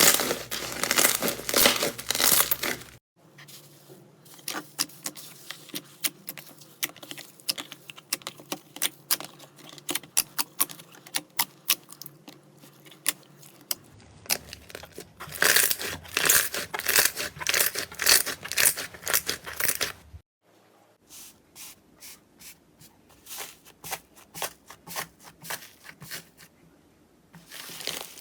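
Slime being squeezed, poked and pressed by hand: rapid sticky crackling and popping clicks as air pockets burst. It comes in a few separate takes, louder and denser near the start and again midway, with quieter, sparser crackles between.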